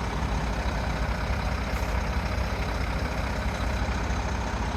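Concrete mixer truck's diesel engine running steadily at idle, a constant low rumble.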